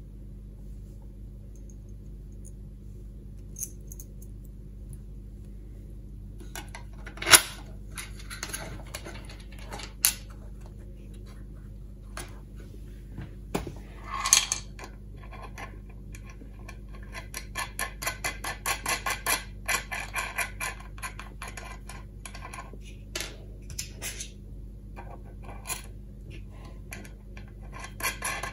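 Small stainless steel M6 nuts and bolts clicking and rattling as they are handled and fitted into a plastic weatherproof box. The clicks start about seven seconds in, with one sharp click the loudest, and a run of quick light ticks comes in the second half, over a faint steady hum.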